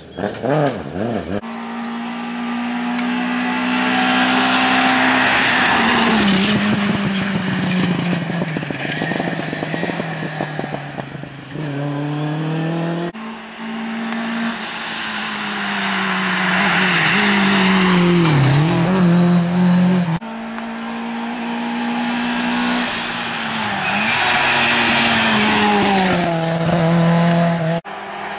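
Rally cars racing past one after another, their engines revving hard. The engine note holds, drops and climbs again as they lift, change gear and accelerate. The sound cuts abruptly between cars about three times.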